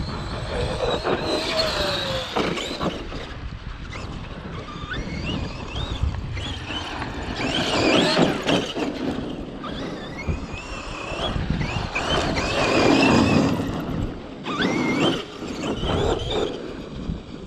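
Traxxas X-Maxx 8S RC monster truck's brushless motor whining as it is driven hard, the pitch rising and falling with repeated bursts of throttle. It is loudest about halfway through and again a few seconds later.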